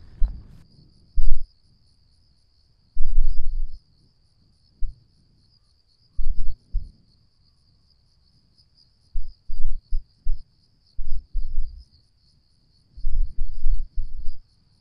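Gusts of wind buffeting the microphone in irregular low bursts, over a steady high-pitched pulsing chirp of insects.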